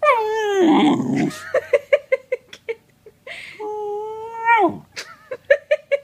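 Australian Shepherd–Blue Heeler–Labrador cross puppy vocalising in play. A long whining growl falls in pitch over the first second, then comes a quick run of short yips, then a steady held whine of about a second that drops away at the end, followed by a few more short yips.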